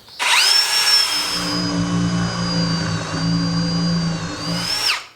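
Power drill with a large spade bit boring a countersink hole into a wooden floor plate. The motor spins up quickly, runs steadily under load for about five seconds, then winds down and stops near the end.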